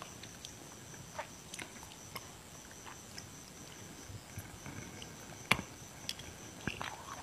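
Close-miked eating sounds: scattered soft mouth clicks and smacks while chewing a ball of sticky rice, with one sharper click about five and a half seconds in. A faint steady high tone runs underneath.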